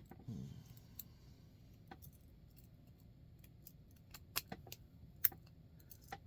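Flat steel warded keys clicking and jingling as they are tried in an antique warded padlock, with scattered sharp metal clicks, the loudest about five seconds in.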